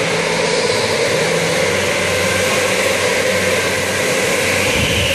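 Electric go-karts running on an indoor track, a steady whir and hum echoing through the hall.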